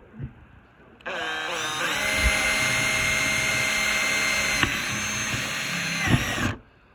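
Electric drill drilling into the plastic lid of a cooler. It spins up with a rising whine about a second in, runs steadily for about five seconds with a brief dip in pitch midway, then stops.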